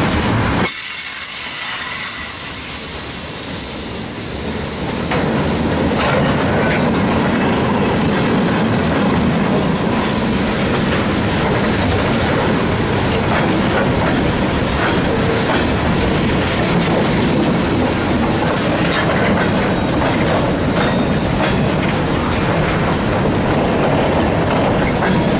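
Loaded freight cars of a passing train rolling by close up, steel wheels clacking over the rail joints. A thin high squeal from the wheels sounds over the first few seconds.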